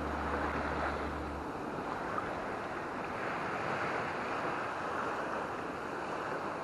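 Small waves washing onto a sandy beach: a steady rush of surf.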